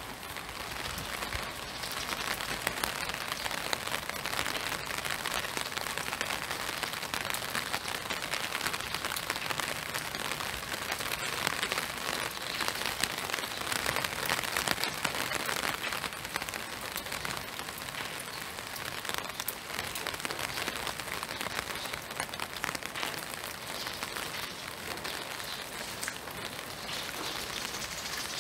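Steady spring rain falling: an even hiss of rain on the ground and leaves, thick with tiny ticks of individual drops.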